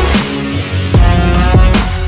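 Electronic dance music in a dubstep style, with heavy bass and a hard beat.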